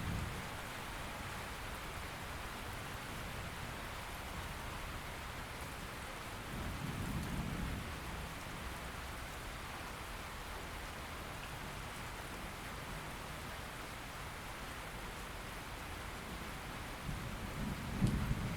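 Steady rain with two low rumbles of thunder, one about a third of the way in and a louder one near the end with a sharper crack.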